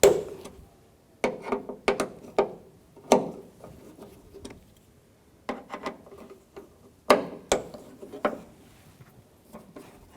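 Ratchet with a T30 Torx bit breaking loose the door latch's mounting bolts, clicking in short bursts with metal tool clinks in between.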